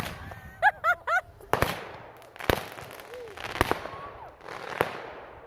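Roman candles firing: sharp pops roughly once a second, with a hiss between shots. A voice calls out briefly about half a second in.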